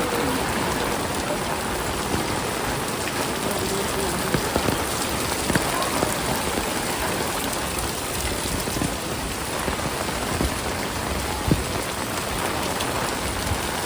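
Heavy rain falling steadily, a dense even hiss with a few sharper drip or splash ticks.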